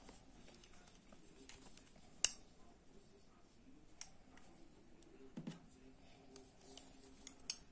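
Small clicks and taps of a crochet hook and a clear plastic bag-handle ring being handled while the ring is fitted to the crochet work, with one sharp click a little over two seconds in and a few faint ticks after it.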